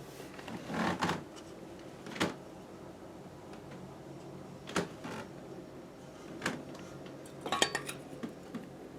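A few sharp clicks and light metallic clinks from small hard objects being handled, single ones spaced a couple of seconds apart and a quick run of them near the end, over a low room hiss.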